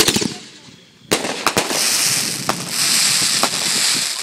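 Aerial fireworks: a sharp bang at the start and another about a second in, then a steady crackling hiss with scattered pops as the stars burn out.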